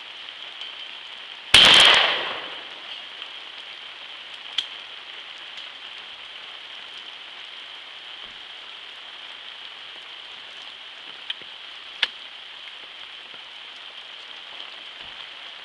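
A single 20-gauge shotgun shot about a second and a half in, its report fading over about a second. Later come a few faint sharp clicks over a steady hiss.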